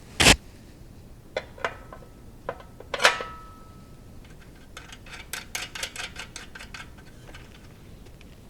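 Metal parts of a paint pressure pot clinking and knocking as they are handled during reassembly: one sharp knock, a few lighter knocks with a short metallic ring, then a quick run of light ticks.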